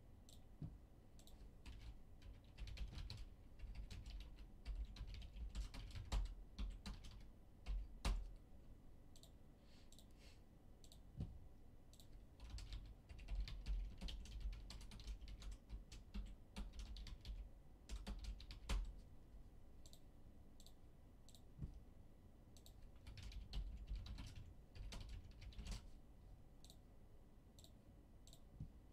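Typing on a computer keyboard: key clicks in irregular spurts with short pauses, and a few louder key strikes.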